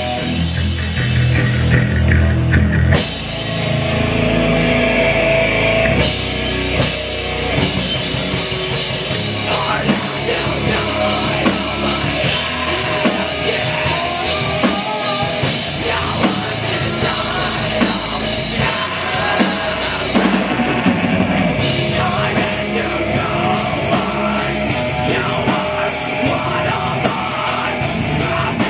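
A live heavy metal band playing loudly: pounding drum kit, distorted electric guitar and electric bass. The song changes section about three seconds in and again around six seconds.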